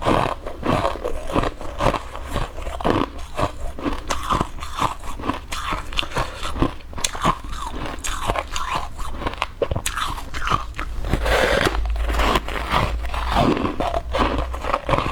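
Close-miked biting and chewing of hard clear ice: a quick run of sharp cracking crunches as the cubes break between the teeth.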